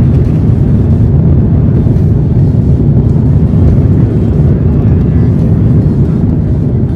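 Cabin noise of an Airbus A330-300 in its landing rollout, heard inside the cabin over the wing: a loud, steady, deep rumble of the engines and wheels on the runway.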